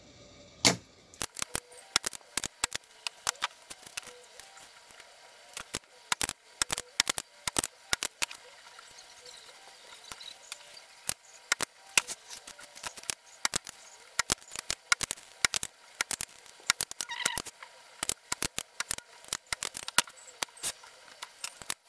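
Sharp, irregular clicks and snaps, several a second, from a spring-loaded desoldering pump being cocked and fired and from handling of the circuit board while potentiometers are desoldered. The loudest snap comes under a second in.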